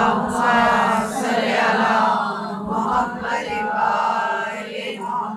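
Chanted religious recitation: a continuous melodic line of voice in a majlis, held without the breaks of ordinary speech.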